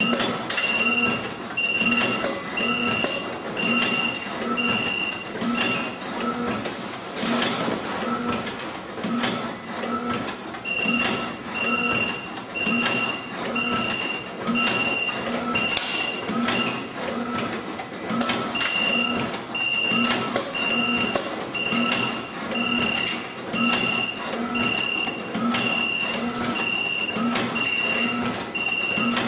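Suzumo nigiri rice-forming machinery running, with a rhythmic mechanical clatter about once a second and frequent clicks. An electronic beeper sounds about once a second at a steady high pitch, in long runs with two pauses.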